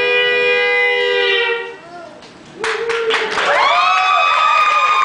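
Fiddle holding a steady double-stop chord that fades out just before the middle. It then slides up into held, gliding notes that imitate a train whistle.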